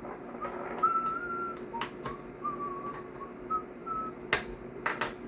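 A person whistling softly, a wavering tune in short broken phrases, over sharp clicks of tools and parts being handled while an airsoft V2 gearbox is opened; the loudest clicks come about four and five seconds in.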